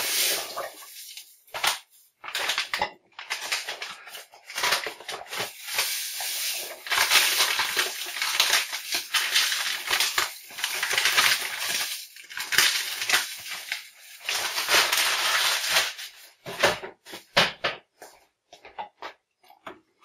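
Granulated sugar pouring from a paper bag into a stainless steel stockpot of nettle wine must: a steady pouring hiss from about four seconds in to about sixteen, with the bag crinkling around it. A few short knocks and crackles near the end.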